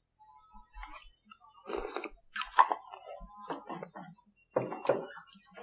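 Irregular rustling and light knocks of things being handled on a desk, in a few short bursts about two, two and a half and nearly five seconds in.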